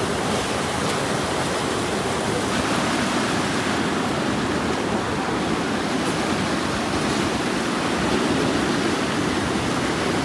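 Floodwater rushing steadily in a continuous, even wash of noise.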